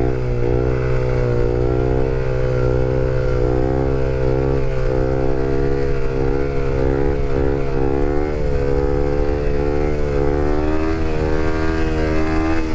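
Honda CRF250L supermoto's single-cylinder four-stroke engine running at a nearly steady speed while cruising, its pitch wavering slightly with small throttle changes.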